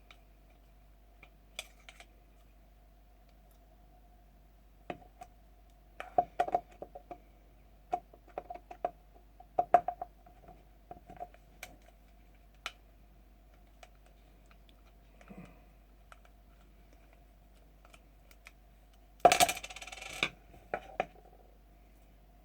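Small metal parts of an airsoft rifle's internals and a screwdriver clicking and clinking in scattered taps during reassembly, with a louder metallic clatter near the end.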